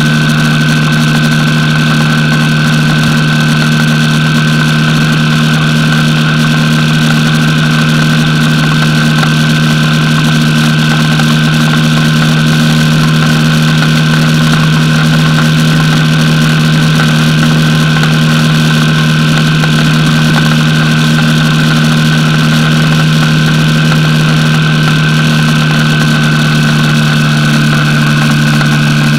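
Yamaha XT 225 Serow's single-cylinder four-stroke engine running steadily at cruising speed, with a constant rush of wind and road noise.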